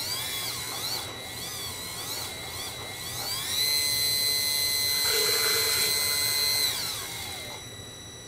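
Small electric smoke-oil pump whining as it pumps test fluid, its speed varied from the radio throttle. The pitch wavers up and down at first, rises about three and a half seconds in to a steady higher whine at full speed, then winds down and fades near the end.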